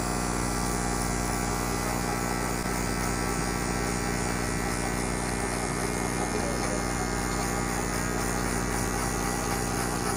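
Electric hair clippers running with a steady buzz while cutting hair on the side of a man's head.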